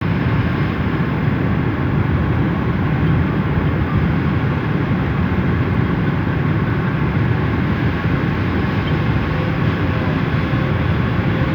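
Steady, loud cabin noise of an airliner on approach to land: the rumble of engines and airflow heard from inside the passenger cabin.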